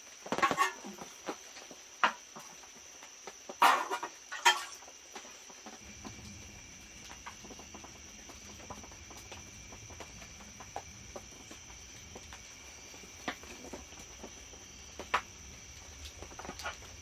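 Metal canteen and canteen cup clunking as they are set down on an aluminium camp table and stove stand: a few knocks in the first five seconds, then only small handling ticks. A faint steady high whine runs underneath.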